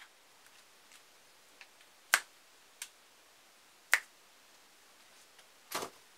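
Finger snaps: two sharp snaps about two seconds apart with a fainter click between them, then a duller, longer knock near the end.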